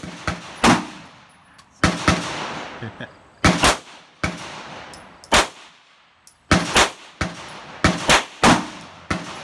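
Semi-automatic pistol gunfire: about a dozen sharp shots at uneven intervals, some in quick pairs, each trailing a short echo.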